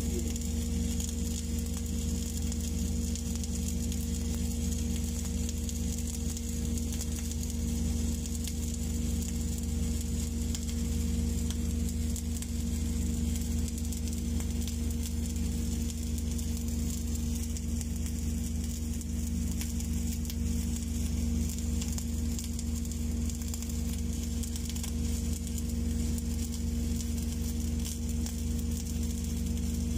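Welding arc of an automatic orbital pipe-welding carriage, sizzling and crackling steadily as it lays a weld with wire feed and spatter, with a steady low hum underneath.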